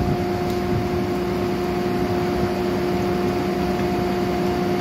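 A machine running steadily: an even rushing hum with a constant mid-pitched tone that does not change.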